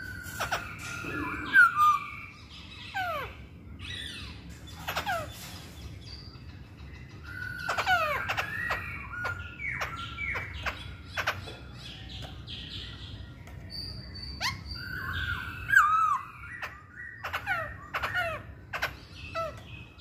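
Masked laughingthrush (poksay hongkong) calling: a busy run of sharp chirps and quick falling whistled notes, with a loud hooked whistle about a second and a half in and another, the loudest, near the end.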